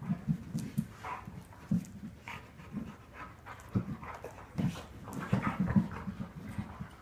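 A dog breathing heavily in short, uneven puffs, a few per second, bunching closer together about five seconds in.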